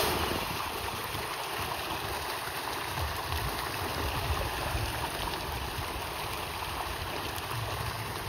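Steady rush of running water, with a low, uneven rumble of wind on the microphone.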